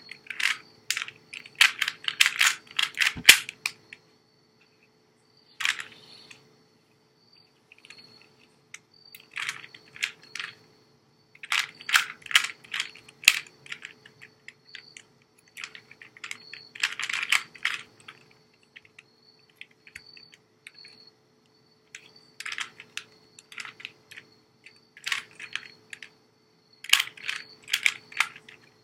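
Plastic Rubik's Cube layers being twisted by hand: runs of quick clicking turns, each lasting a second or two, with short pauses between while the next move is worked out.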